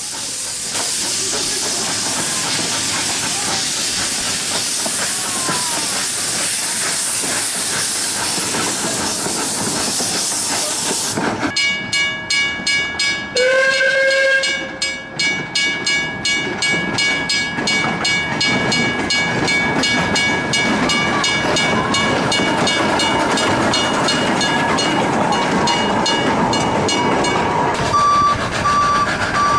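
A steady loud hiss of steam from a 1957 457 mm gauge miniature steam locomotive, then the miniature railway's level-crossing alarm ringing rapidly, with a short steam-whistle blast about a third of the way in. Near the end the ringing stops and a crossing beeper starts pulsing.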